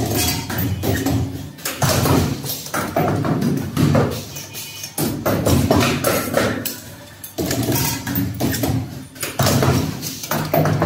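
Pneumatic hose clamp forming machine running through its cycles. Its air cylinders and tooling clack and knock in clusters that repeat every two to three seconds.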